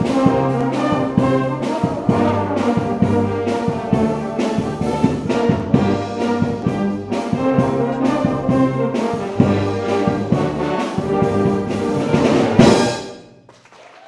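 Brass band music with held brass notes over a steady beat, which cuts off sharply near the end.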